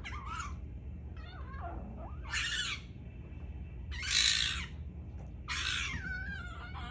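Agitated fennec fox calling: three loud, harsh, screechy squawks about two and a half, four and five and a half seconds in, with softer wavering whines between them and after the last.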